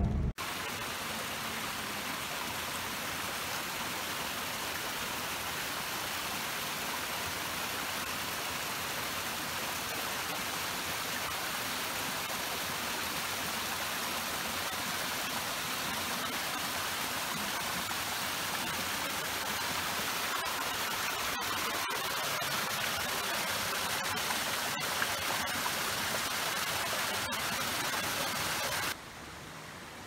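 Mountain stream rushing over boulders: a steady, even rush of water that turns much quieter about a second before the end.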